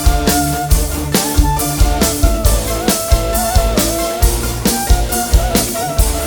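Instrumental band music over a PA system: drum kit keeping a steady beat under bass and a bending lead melody, with no singing.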